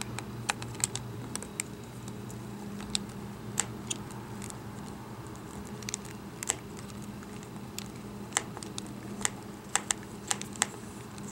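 Small, sharp, irregular clicks of a Phillips precision screwdriver working the small screws that hold a laptop motherboard, the tip ticking in the screw heads as it turns. A steady low hum runs underneath.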